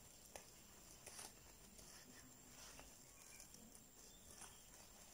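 Near silence, with faint scattered soft ticks and rustles of a crochet hook and yarn being worked through stitches.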